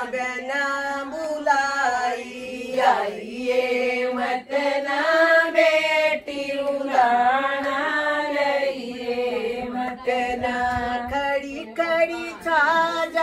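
Women singing a folk song together without instruments, in a steady chant-like melody with held and gliding notes.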